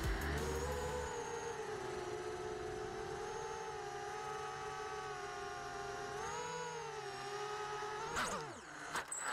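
QAV210 quadcopter's brushless motors and propellers whining at a steady pitch, rising briefly about six seconds in. Near the end the motors wind down sharply, followed by a few clicks.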